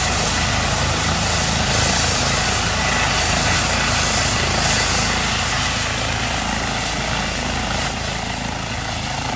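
Aircraft engine noise: a loud, steady roar with a low hum beneath it, easing slightly near the end.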